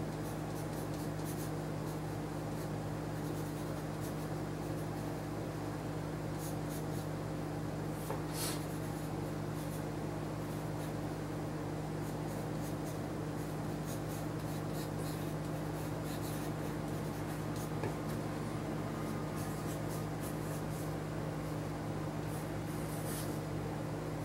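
Pencil scratching on paper in short, irregular sketching strokes, over a steady low hum.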